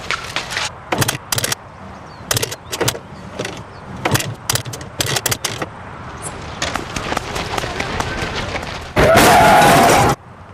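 Rapid, irregular clicking of many camera shutters. About nine seconds in, a loud sound about a second long with a wavering pitch, which cuts off suddenly.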